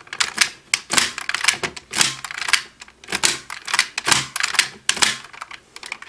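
Hard plastic clicks and clacks from a DX Desire Driver toy belt as the Boost Raise Buckle is fitted and worked, an irregular run of sharp clicks about two or three a second.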